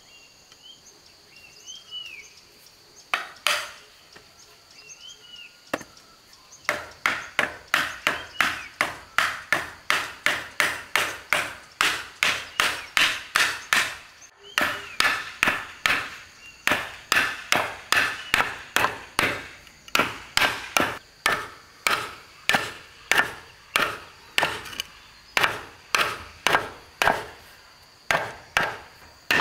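A hand tool striking wood in a steady run of blows, about three a second, with a short break midway; a single blow comes a few seconds before the run. Birds chirp and an insect hums before the blows begin.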